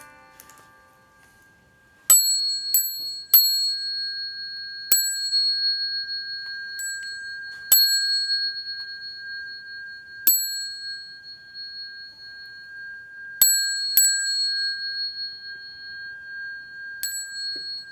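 Small metal bell struck about ten times at uneven intervals, starting about two seconds in; each strike is a sharp ding, and a steady high ringing tone carries on between strikes.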